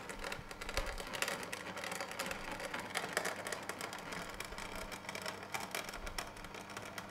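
Horizontal 707 slow juicer running: a steady low motor hum with dense crackling and grinding as its auger crushes the finely ground rose hip seed particles in the thick puree.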